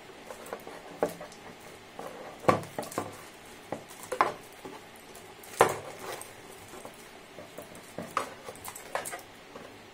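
Black power-supply cables being handled and untangled, their hard plastic connectors clicking and clacking against each other at irregular moments, with the crinkle of a plastic bag. The two loudest clacks come about two and a half and five and a half seconds in.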